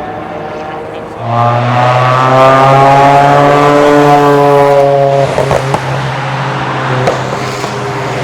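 A car's engine passing close by at speed: it comes in loud about a second in, holds a steady note, then drops in pitch as it goes past and fades. A few sharp exhaust crackles follow as it moves away.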